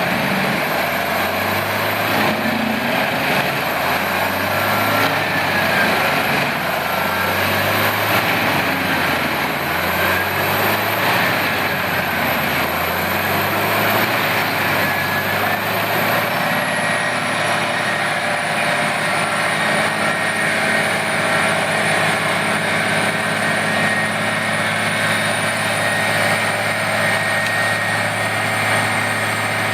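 Heavy engine of a large industrial wood chipper running steadily at constant speed, holding an even level throughout.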